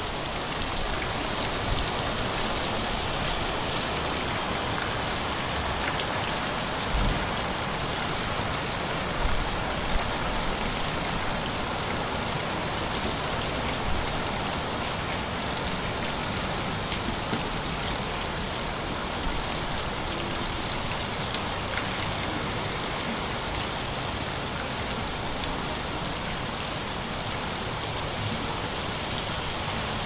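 Heavy rain pouring steadily onto a street, a constant even hiss with a few sharper taps of drops landing close by.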